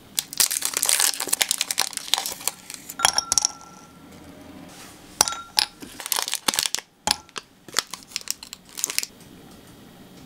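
Individually wrapped milk chocolate squares being unwrapped by hand: the foil-lined wrappers crinkle in two spells of a few seconds each, with a few sharp ticks among the crinkling.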